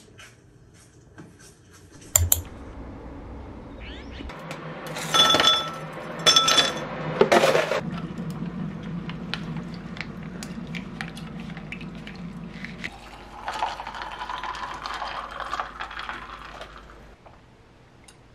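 A glass clinks once about two seconds in, then ice cubes clatter and clink loudly into the glass. A steady pour of iced grapefruit tea over the ice follows.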